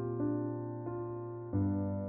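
Slow, soft lullaby music played on a piano-type keyboard: sustained chords with a new note struck about every half to three quarters of a second, and a deeper bass chord coming in about one and a half seconds in.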